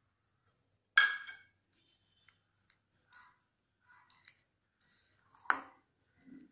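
A small steel cup clinks once against a ceramic bowl about a second in, then a wooden spoon scrapes and taps softly in the bowl as it stirs a dry, coarse spice mix, with a louder knock of spoon on bowl about five and a half seconds in.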